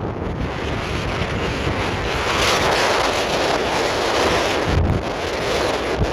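Strong blizzard wind blowing in gusts and buffeting the microphone with low rumbles, getting stronger about two seconds in.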